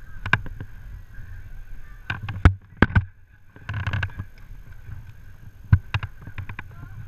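Low wind and handling rumble on a body-worn action camera during an abseil, broken by a string of sharp knocks and clicks from the rope and metal abseiling hardware (karabiners and descender). The loudest knocks come about two and a half, three and six seconds in.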